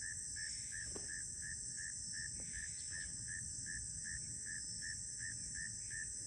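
Evening insect chorus: a steady high-pitched drone with a regular chirp repeating nearly three times a second.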